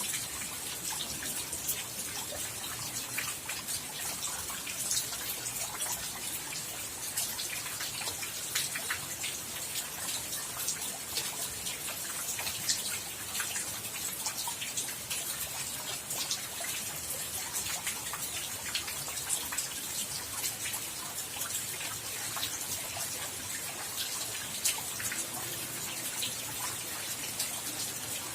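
Rain falling steadily: an even hiss with many sharp, irregular ticks of individual drops striking.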